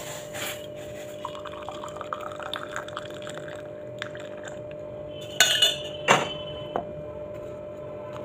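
Hot tea poured into a ceramic mug with a rising filling sound, followed about two seconds later by a few sharp clinks of metal utensils against the mug.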